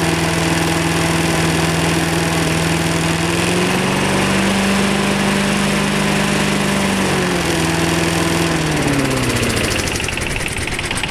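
Rover rotary lawn mower's petrol engine running smoothly, with no knocking. It speeds up about three and a half seconds in, holds, then slows steadily from about seven seconds until its pitch drops away near the end.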